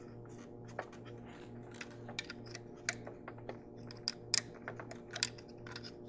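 Irregular light clicks and taps of hand tools and metal parts being worked by hand in a car engine bay, over a faint low hum that pulses at a steady rhythm.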